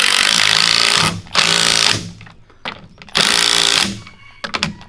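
Cordless impact wrench hammering nuts down onto the studs of a strut's leveling spacer. It runs in three goes: one that carries on until about a second in, a short one just after, and another at about three seconds.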